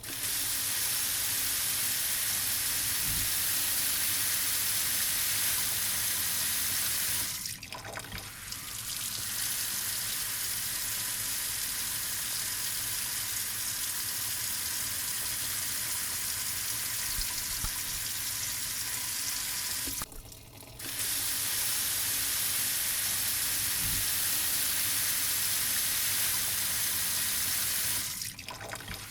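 Water running from a tap in a steady stream, a continuous splashing hiss. It drops away briefly three times, for about a second each.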